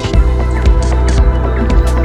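Background music with sustained chords and a steady beat.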